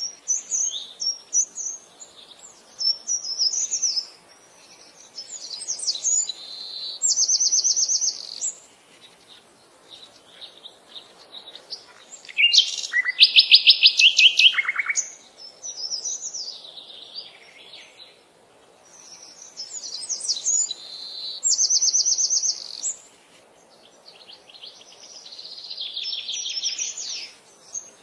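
Songbird singing: phrases of high chirps, each ending in a very fast trill, repeated in bouts a few seconds apart, with the loudest phrase about halfway through.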